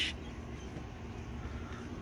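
Quiet outdoor background: a steady low rumble with no distinct sounds in it.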